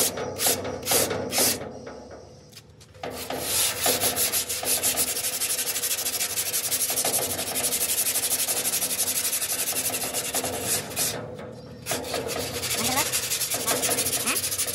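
Sandpaper rubbed by hand over a rusty sheet-steel board: quick back-and-forth scraping strokes that scour off the rust. The scraping eases off briefly about two seconds in and again near the end, then resumes.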